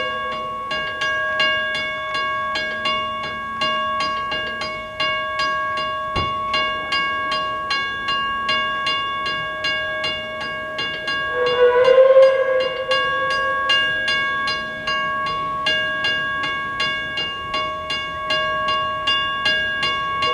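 Level-crossing warning bell ringing steadily, about two strikes a second, while the lights flash and the boom gates come down. Near the middle a louder hooting tone sounds for about a second over the bell.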